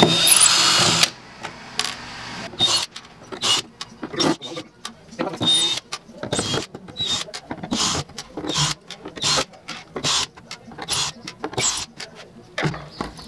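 Cordless drill backing screws out of the top cover of a bass-reflex speaker cabinet: one loud run of about a second at the start, then short bursts of the motor among many sharp clicks and knocks as the screws come out.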